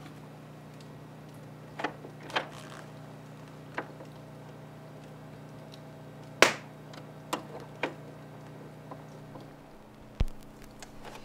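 Clicks and knocks of a record turntable being handled, the tonearm lifted and set over the vinyl record, with the sharpest click about six seconds in and a dull thump near the end. A steady low hum runs under them and dies away about ten seconds in.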